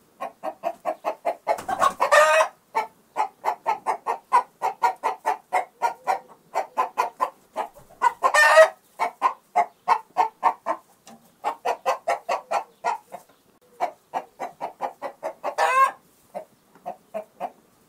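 Chicken clucking: a steady run of short, even clucks, about five a second, broken by three loud, drawn-out squawks, about two seconds in, midway through and near the end.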